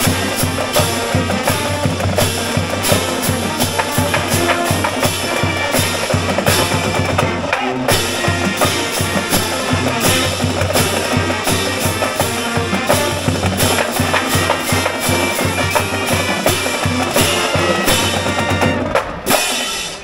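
A marching pep band plays a tune: sousaphones, trumpets and other brass over a steady beat of bass drum, snare drum and cymbals. The band stops shortly before the end.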